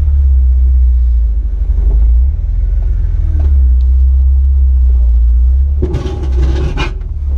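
Low, steady rumble of a Jeep Wrangler LJ crawling over rock, with a loud rough burst about a second long near the end.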